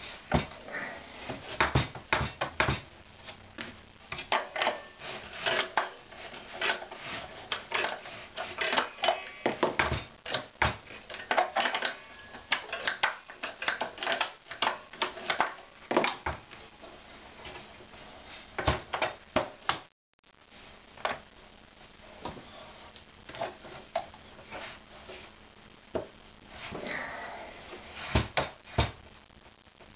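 Homemade plywood book-scanner cradle handled and tilted by hand: the plywood platens knock and clack with light metal rattles from the spring-loaded rod hardware, many quick hits in a row. The sound drops out briefly about two-thirds through, then sparser knocks follow with a short scraping rub near the end.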